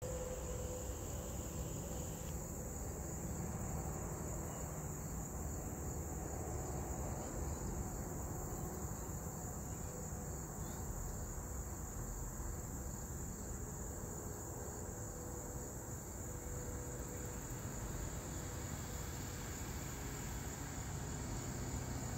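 Steady high-pitched chorus of crickets trilling without a break, with a low rumble underneath.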